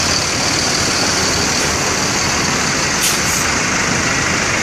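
Heavy roadside traffic, buses running past: a loud, steady engine and tyre noise with no horn melody, and a short high hiss about three seconds in.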